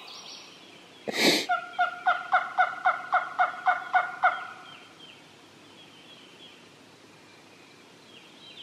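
Loud bird-like calling: one sharp cry about a second in, then a run of about eleven short, even notes at roughly four a second, ending a little after four seconds.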